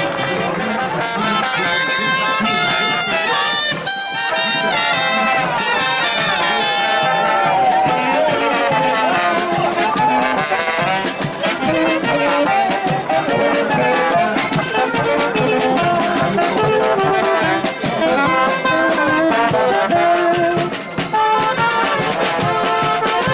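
Marching brass band in German folk costume playing a tune as it parades, with saxophones and trumpet over a steady snare and bass drum beat.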